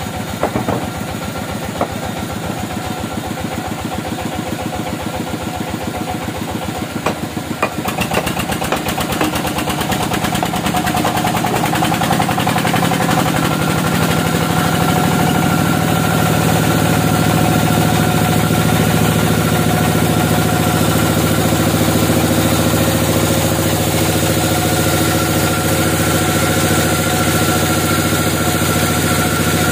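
Band sawmill running, with a few knocks in the first eight seconds as the log is set on the carriage. About eight seconds in, the band saw blade enters the log and the sound builds into a louder, steady cutting drone with a held whine.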